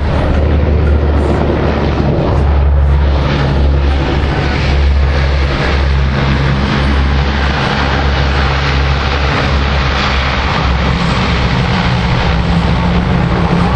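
Four Allison T56 turboprop engines of a C-130 Hercules running loud and steady at high power, propellers in reverse pitch for the reverse taxi on the runway: a deep, even drone under a broad rushing roar of air.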